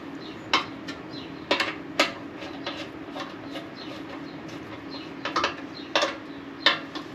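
Light metal clicks and clinks, about half a dozen scattered through, as small fuel petcock parts are handled and fitted by hand, over a steady low hum.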